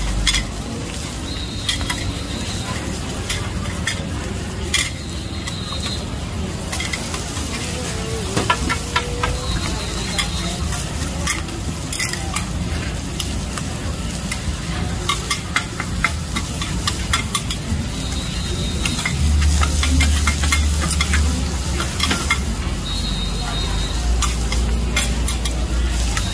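Green-mussel omelettes (hoi tod) sizzling in oil on a large flat griddle, with metal spatulas scraping and clinking against the pan again and again.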